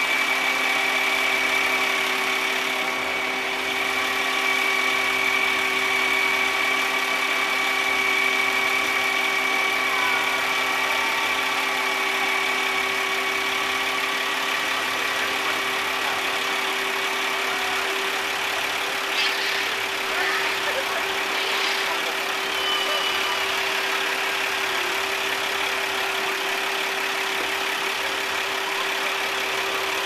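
Fire department ladder truck's engine running steadily, with a steady whine over it as it powers the raised aerial ladder. One of the lower tones drops out about eighteen seconds in.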